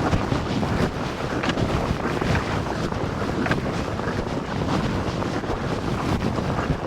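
Strong blizzard wind gusting and buffeting the microphone, a dense steady rush with a few sharp snaps through it.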